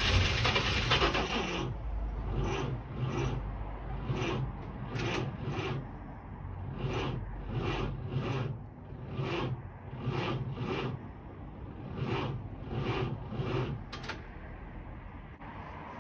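Scraping strokes: a couple of seconds of continuous scraping, then short strokes at about one or two a second, unevenly spaced, stopping a couple of seconds before the end.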